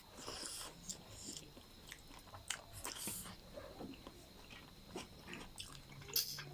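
Close-up eating sounds: chewing and biting with scattered small clicks and crunches.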